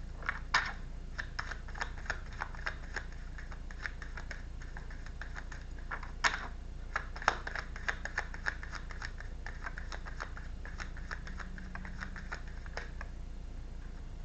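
Tarot cards being shuffled and handled: a run of irregular light clicks and slaps, busiest in the first half and thinning out toward the end.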